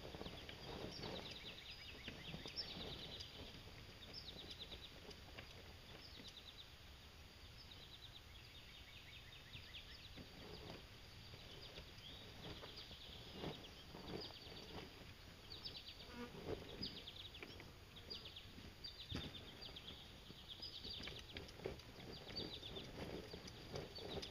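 Faint insects trilling in short, high-pitched pulsed calls that repeat every second or two, with scattered faint knocks and scrapes underneath.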